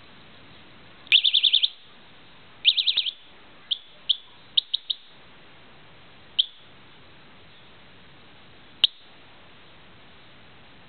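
Chinese bicycle alarm giving short, high electronic chirps: two quick runs of about five chirps each near the start, then a scatter of single chirps over the following seconds.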